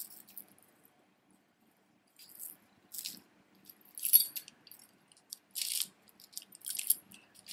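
Beaded and metal jewelry rattling and clinking as it is handled, in about six short bursts, the loudest about four seconds in.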